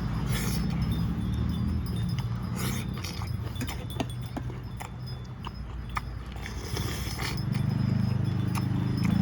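Close-up eating sounds of someone chewing Isan spicy mango salad: scattered mouth clicks, smacks and crunches over a steady low hum.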